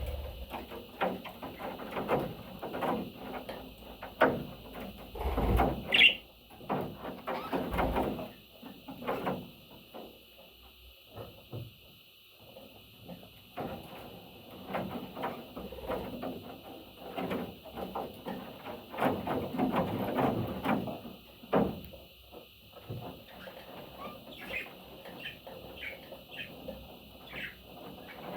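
Pet parrot making a few short chirps, about 6 s in and several near the end, over irregular small knocks, clicks and rustling.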